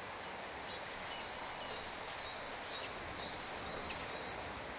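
Outdoor ambience: a steady hiss with scattered faint, short bird chirps.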